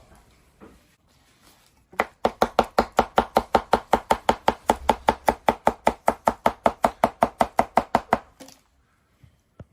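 Rapid, even chopping strokes, about six or seven a second. They start about two seconds in, run for some six seconds and stop suddenly.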